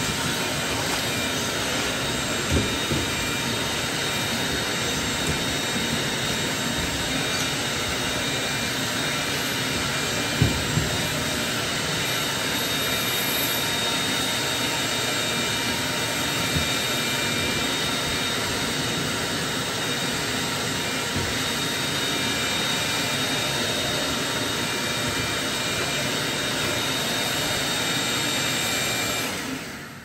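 Ridgid 10-gallon wet/dry shop vacuum with a 6-peak-horsepower motor, running steadily while its hose cleans carpeted stairs: a rush of air with a steady high whine, broken by a few brief knocks. The sound fades out near the end.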